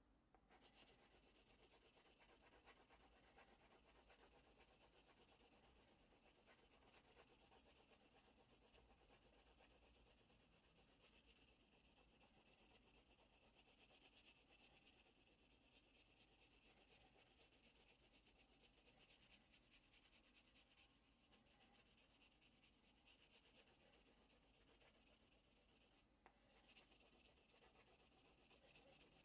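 Faint, continuous scratching of a soft graphite pencil shaded rapidly back and forth over paper, coating the back of a print with graphite for a line-drawing transfer. It stops briefly twice, in the last third.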